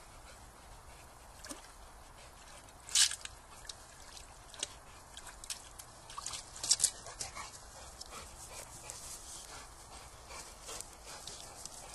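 Boxer dog pawing and dipping its head into water in a stone trough, making sharp splashes, the loudest about three seconds in and again over the middle of the clip, with dribbling water and the dog's whimpering between them.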